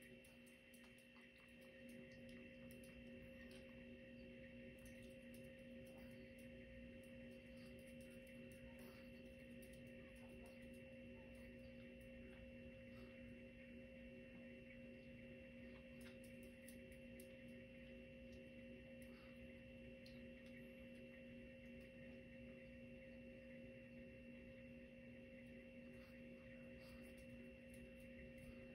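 Near silence: a faint steady hum of several pitches, with faint scattered clicks from a small dog eating at a metal food bowl.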